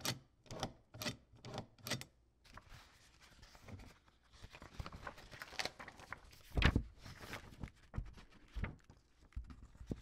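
Three-hole paper punch worked with no paper in it: about five sharp clicks in the first two seconds. Then a stretch of rustling and handling noise with a heavy thump about two-thirds of the way through.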